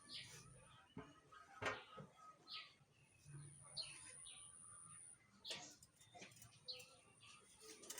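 Faint bird chirps, short and falling, repeating about once a second, with a steady high whine behind them and one sharp click about one and a half seconds in.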